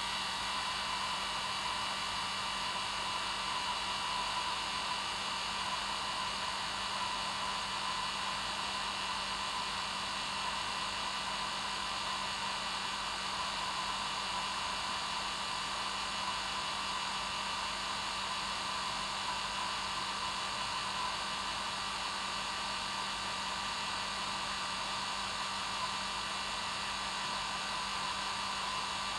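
Hair dryer running steadily on its normal setting, an even whirring rush of air with a steady low hum underneath and no change in level.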